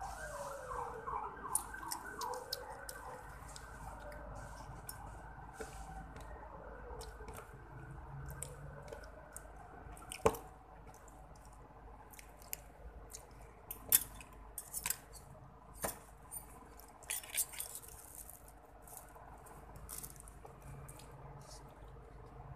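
Scattered sharp clicks and light scrapes of a metal fork and spoon against a paperboard food box and the chicken bones in it. A faint wavering tone falls and rises in pitch in the first few seconds and again around eight seconds in.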